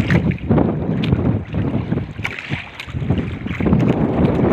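Heavy, uneven wind rumble on the microphone, with water lapping and slapping against the hull of a wooden outrigger boat and a few small knocks.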